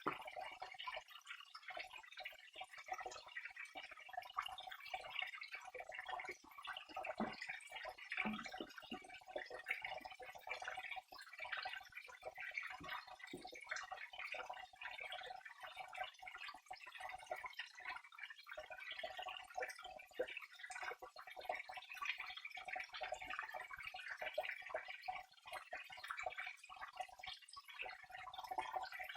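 Flowing water trickling steadily, a dense run of small splashes and drips.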